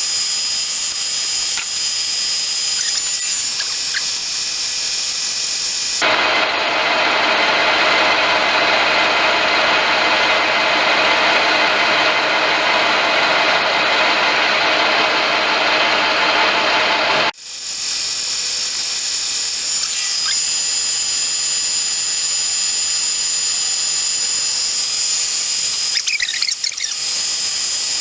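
Lathe running while turning a tensile test specimen, with a steady high-pitched whine. For about eleven seconds in the middle the sound is louder and rougher, then returns to the steadier whine.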